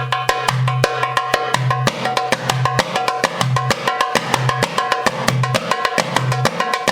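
Arabic tabla (darbuka) played in a fast, even stream of bright tek and ka strokes, with a deep doom coming back about once a second. It is the Moroccan Shabi rhythm in a count of six, with the doom on five.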